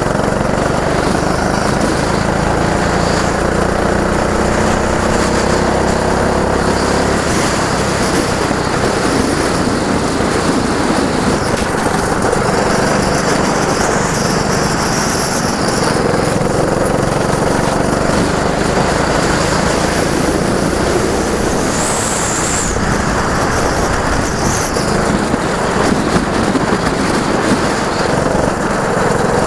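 Go-kart engines running on track, their pitch rising and falling as the karts speed up and slow for the corners, with two brief high squeals about two-thirds of the way through.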